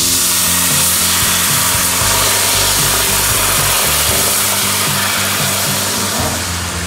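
Coconut rum poured into hot melted butter in a skillet, hissing and sizzling loudly as the alcohol hits the pan and boils. The sizzle starts with the pour and eases slightly near the end.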